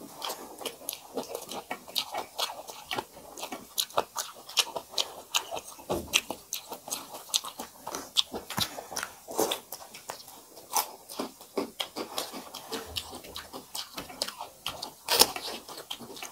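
Close-up chewing and lip smacking of two people eating rice with dal and fried vegetables by hand: a dense, irregular run of wet clicks and smacks, with one louder smack near the end.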